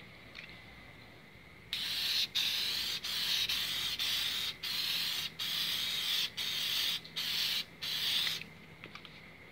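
Aerosol spray-paint can spraying in about eight hissing bursts separated by brief pauses, starting about two seconds in and stopping shortly before the end.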